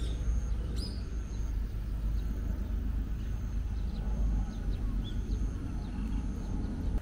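Outdoor ambience: a steady low rumble of wind on the microphone, with faint bird chirps and a thin high tone repeating about once a second.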